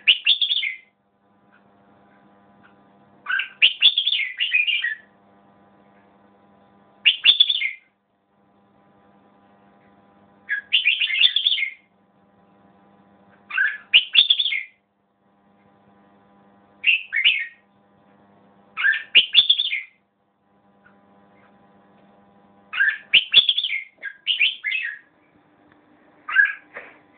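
Caged red-whiskered bulbul singing short, bright, warbling phrases, about ten in all, each a second or so long and coming every few seconds. A faint steady hum sits under the gaps between phrases.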